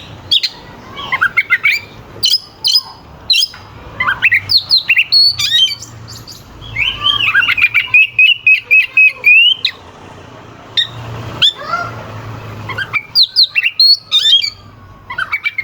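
Oriental magpie-robin (kacer) singing hard, a fast, loud string of sharp whistles, quick up-and-down glides and harsh notes, with one long rolling trill in the middle lasting a few seconds.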